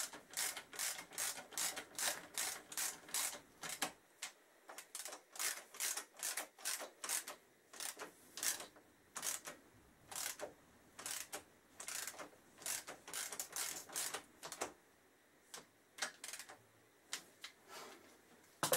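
Ratchet spanner clicking as it tightens the radiator mounting bolts on a motorcycle, about three clicks a second in runs of several seconds with short pauses between them.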